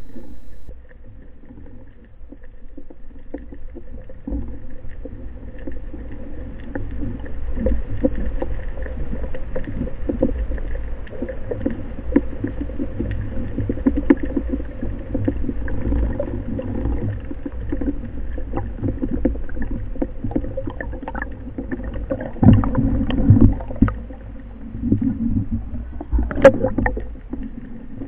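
Underwater noise picked up by a camera mounted on a speargun: a steady low rush of water with many scattered clicks and crackles, a louder cluster of knocks past the middle and one sharp knock near the end.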